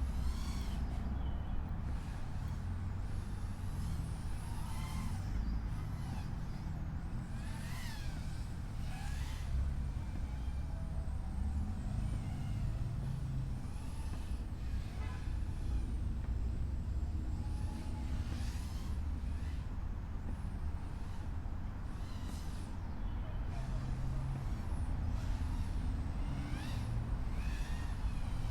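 GEPRC Smart 35 FPV quadcopter's motors and propellers whining, the pitch rising and falling with the throttle, with several brief rising surges as the throttle is punched. A steady low rumble runs underneath.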